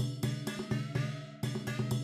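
Background music with a steady drum beat, about four beats a second over sustained synth and bass notes.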